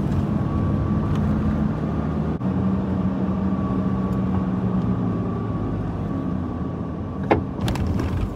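Steady engine and road hum of a car driving slowly, heard from inside the cabin, with a thin steady whine above it. A short sharp click sounds once, about seven seconds in.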